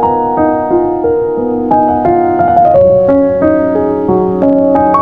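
Piano introduction to a slow ballad: single notes and chords struck a few times a second, each ringing on into the next.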